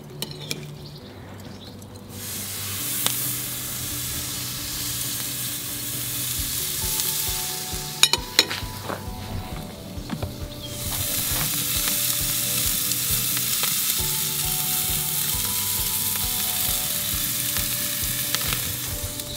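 Raw chicken breast sizzling on a hot barbecue grill at about 275 °C: a steady crackling hiss that starts about two seconds in, sags briefly around the middle, then comes back louder. A few sharp clicks sound near the middle.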